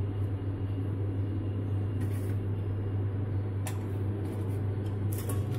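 A steady low hum with a few light clicks and knocks, about two seconds in, near four seconds and just before the end.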